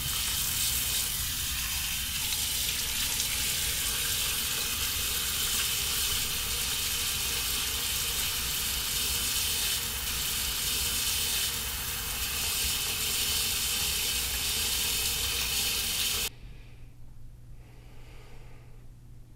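Water running steadily from a bathroom sink tap. It stops abruptly about sixteen seconds in, leaving a faint low hum.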